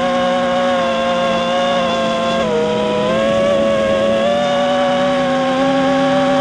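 FPV quadcopter's electric motors and propellers whining, heard close up from on board. The pitch holds steady, dips briefly about two and a half seconds in as the throttle eases, then comes back up.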